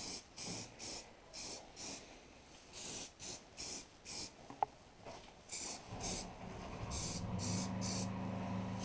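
Aerosol can of black spray paint sprayed in many short hissing bursts, about two a second with brief pauses, putting a second coat on a welded steel valve bracket. From about six seconds in, a steady low hum runs underneath.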